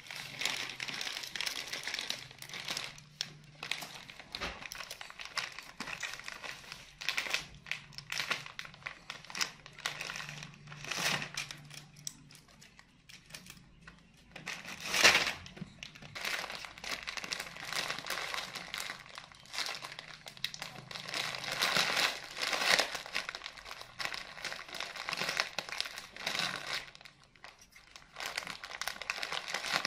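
Plastic snack packaging crinkling and rustling in irregular bursts as young macaques paw at and tug on the packet.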